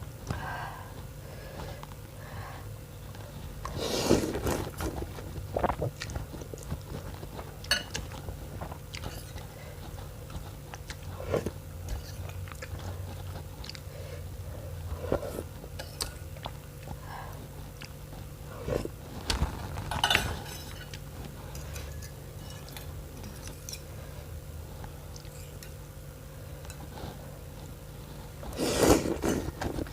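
A person eating noodle soup with bones close to the microphone: chewing and biting, with scattered short clicks of utensils on the bowl and a few louder bursts, over a steady low hum.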